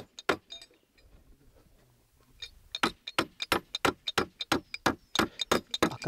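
Claw hammer driving nails into the wooden boards of a beehive box: one blow just after the start, then from about two and a half seconds in a quick, even run of sharp blows, about three a second.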